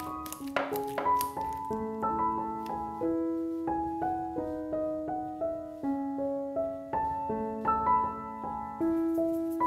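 Gentle solo piano music, a slow melody of sustained notes. In the first second, a few sharp clicks from a wire potato masher striking a glass bowl.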